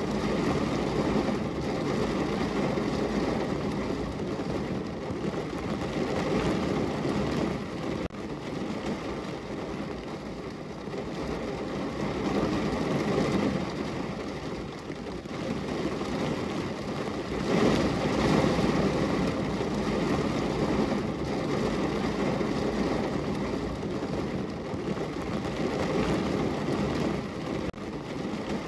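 Steady rain pattering on a window, a continuous even wash of noise that swells louder for a few seconds about two-thirds of the way through.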